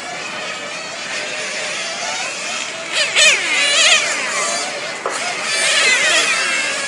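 Radio-controlled 1/10 nitro touring cars racing, their small glow-fuel engines running at a high-pitched scream with the pitch sweeping up and down as they brake and accelerate through the corner. The loudest passes come about three seconds in and again around six seconds in.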